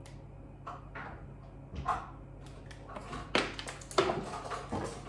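Scattered short knocks, taps and clatters from kitchen items being handled while food is seasoned, with a cluster of them in the second half, over a steady low hum.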